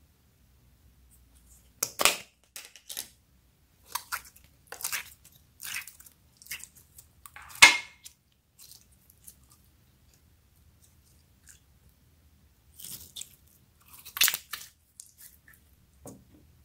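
Rainbow jelly slime being squeezed and pulled apart by hand, giving sticky squelching and crackling in irregular bursts. The loudest burst comes about two thirds of the way through the first half, and there is a quiet stretch of a few seconds in the middle.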